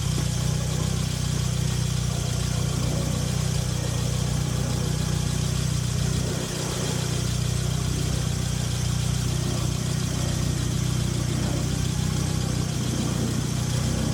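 Mazda RX-7 FC's twin-rotor 13B rotary engine idling steadily, with a brief dip in level about six and a half seconds in.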